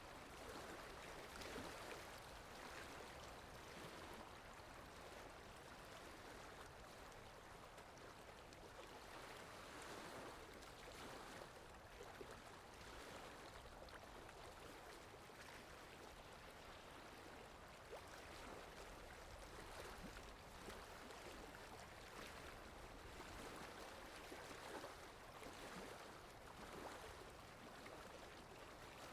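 Faint water lapping with wind: a steady watery wash with soft, irregular swells.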